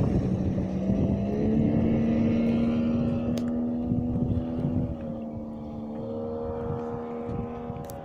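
Engine of a Plancraft Sabre motorboat running at speed, a steady drone that grows fainter as the boat pulls away. Wind buffets the microphone in the first second.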